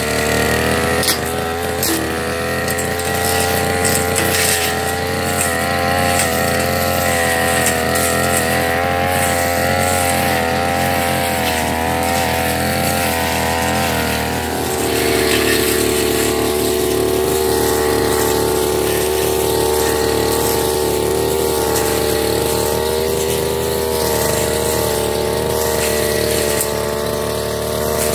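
Backpack brush cutter's small petrol engine running at high speed while its blade cuts through grass and weeds. The engine note wavers up and down as the blade takes load, with a few sharp ticks near the start. About halfway through, the note becomes steady.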